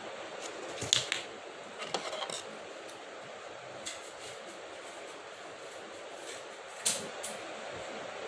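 Scissors snipping cardboard a few times in short, sharp clicks, the loudest about a second in and again near the end, over a steady hiss.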